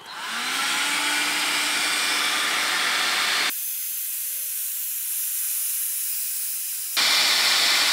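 Makita HG5012 heat gun switched on, its fan spinning up with a faint rising whine and settling into a steady hiss of blown hot air on fiberglass cloth. About halfway through the sound turns abruptly thinner, then jumps louder again near the end.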